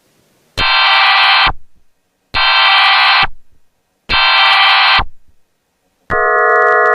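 Emergency Alert System test: three bursts of about a second each of the screeching digital data header, with short pauses between them. About six seconds in, the steady attention tone starts, a held chord of several tones.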